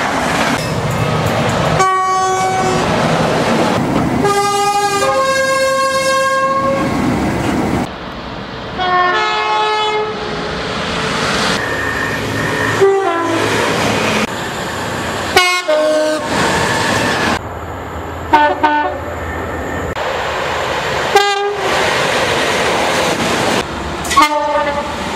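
A string of British train horn blasts from different trains, about eight in all, joined by abrupt cuts. Some are two-tone horns sounding two notes in turn. The running noise of passing trains sits between the blasts.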